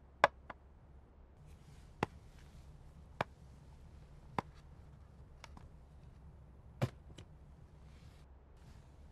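A series of sharp, short taps and knocks, roughly one every second, the loudest just after the start, over a faint steady hiss.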